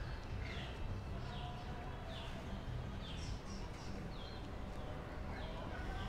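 A bird calling repeatedly, short falling chirps about once a second, over steady outdoor background noise.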